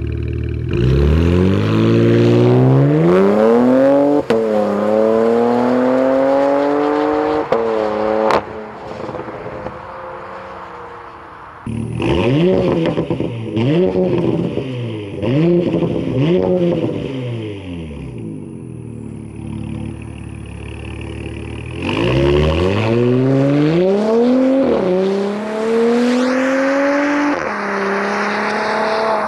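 Porsche Macan S 3.0-litre turbocharged V6 through a muffler-less AWE Tuning Touring Edition exhaust, revving hard with the pitch climbing and dropping twice. After a cut, a facelifted single-turbo Macan S on the same exhaust blips the throttle several times and then pulls away hard, its pitch climbing and dropping at each upshift.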